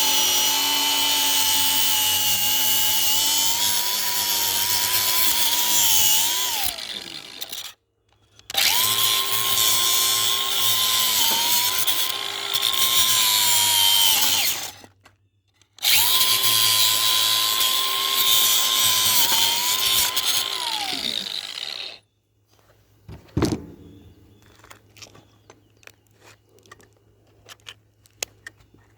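Handheld power tool motor running in three stretches of six to seven seconds, its pitch falling as it spins down at the end of each, typical of drilling into a padlock. After the third run, one knock and light scattered clicks.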